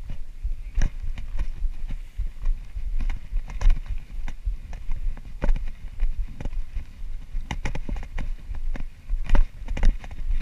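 Footsteps on bare granite rock, a shoe striking the hard stone about once a second at an uneven pace, with low wind rumble on the microphone.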